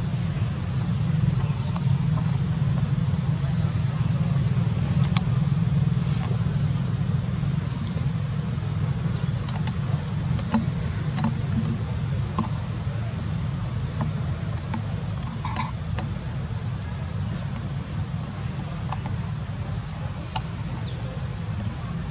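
A high insect chorus, steady in pitch and pulsing up and down about once a second, over a steady low rumble, with a few faint short chirps and small clicks.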